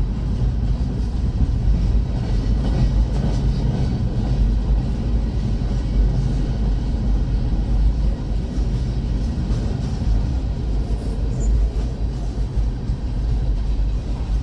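Freight train cars rolling past at close range: a steady low rumble with wheels clicking over the rails, no let-up.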